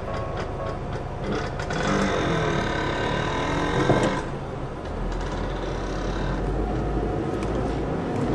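Vehicle and rail traffic at a railway level crossing. A ringing sound of several steady high tones runs from about one to four seconds in and ends with a sharp peak. A deep engine rumble follows from about five seconds in.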